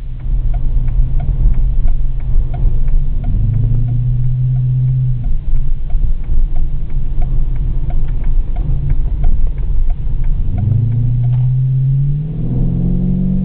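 Dodge Magnum R/T's 5.7-litre Hemi V8 through a Bassani aftermarket exhaust, heard from inside the cabin: a deep rumble with spells of steady drone, its pitch climbing near the end as the engine pulls harder. A light regular ticking, about two to three a second, runs under it and stops shortly before the end.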